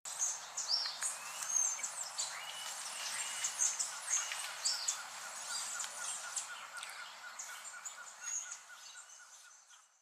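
Tropical forest birds chirping and calling, many short high notes from several birds over a steady background hiss. A fast, even ticking joins about three seconds in, and the whole fades out near the end.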